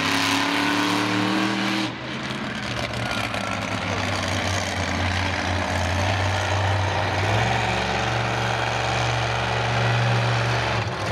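Monster truck engine revving under load as the truck drives and turns on pavement: the revs climb over the first two seconds, drop briefly, then hold steady, with a higher, louder engine note from about seven seconds in.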